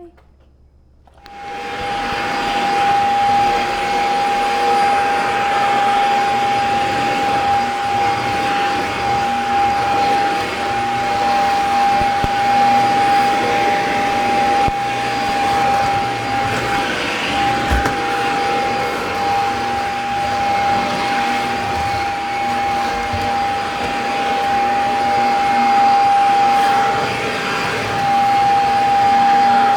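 Vacuum cleaner switched on about a second in, then running steadily with a high, even whine over its rushing air noise.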